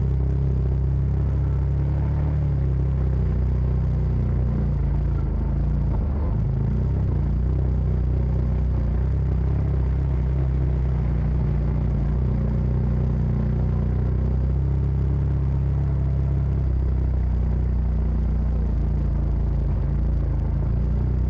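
Side-by-side UTV engine running at a steady, low engine note as the machine drives a rough trail.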